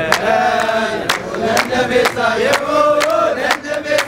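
A group of people singing a festive chant together, with hand claps keeping a steady beat about twice a second.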